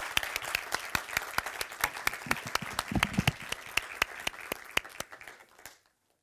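Audience applause, with sharp hand claps from one person close by standing out over the crowd's clapping. It dies away and stops near the end.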